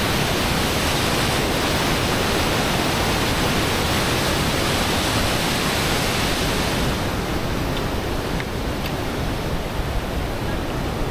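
A raging mountain river rushing over rocks below in white-water rapids, a loud, steady roar of water. About seven seconds in the roar grows softer and less hissy, with a few faint clicks.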